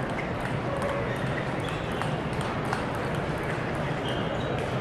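Irregular clicks of table-tennis balls on tables and bats across a busy tournament hall, over a steady murmur of hall noise.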